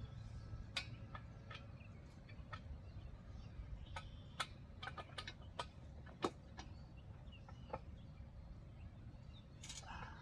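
Irregular light clicks and taps of trampoline frame bolts, nuts and steel frame parts being handled and fitted, over a low steady rumble.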